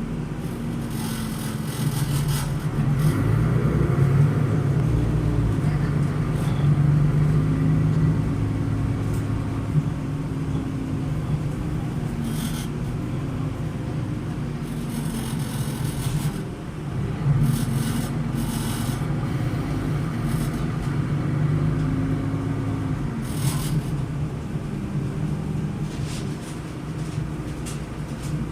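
Solaris Urbino 12 LE city bus's turbocharged DAF inline-six diesel heard from inside the passenger cabin while driving. The engine note climbs and drops twice as the ZF Ecolife automatic works through its gears, with short bursts of rattling from interior fittings shaken by the engine's vibration.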